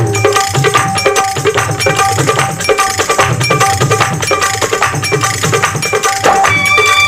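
Instrumental interlude of a 1980s Bollywood film song, with busy hand percussion and melodic instruments; sustained instrumental notes come in near the end.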